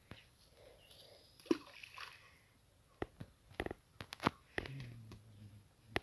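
A handful of sharp clicks and knocks at irregular intervals, with a short low hum about two thirds of the way through.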